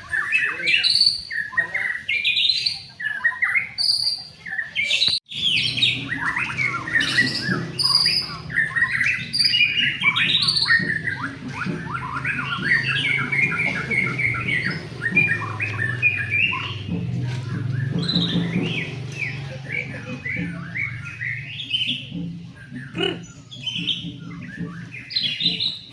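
White-rumped shama (murai batu) singing a fast, varied song of whistles and chirps. A brief break about five seconds in, after which a low hum runs underneath.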